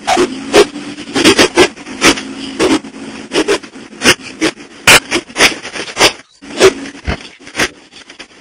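Truck cab jolting over a rough dirt track: irregular sharp knocks and rattles, two or three a second, over a steady engine hum.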